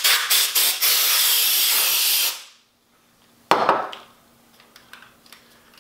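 Can of compressed-air duster spraying: a few short puffs and then one longer steady hiss, blowing dust out of a 1:18 die-cast model car. It cuts off about two and a half seconds in. One brief sharp sound follows about a second later.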